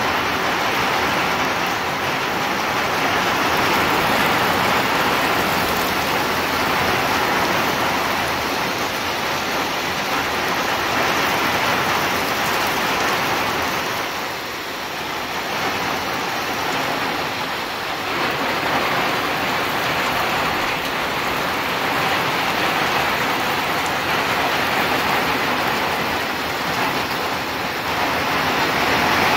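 Heavy rain pouring down steadily in a summer storm downpour.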